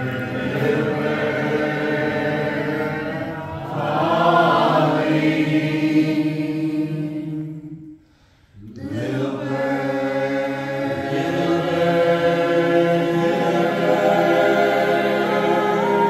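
A small group of voices singing together a cappella in long held notes, breaking off for about a second halfway through and then coming back in.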